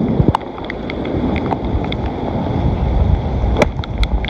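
Heavy wind buffeting the microphone in a rainstorm, a strong uneven rumble, with a few sharp ticks of raindrops striking the mic, the clearest about half a second in and near the end.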